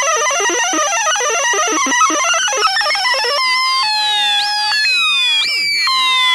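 Teisco 110-F analog synthesizer making electronic noise effects. First a dense jumble of rapid, randomly pitched blips under a steady high whistle; about three and a half seconds in it changes to repeating falling swoops, about one a second, over held tones.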